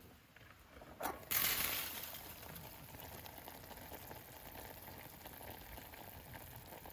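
A click, then a sudden loud hiss of liquid on a hot cooking vessel that settles within a second or so into a steady boiling hiss.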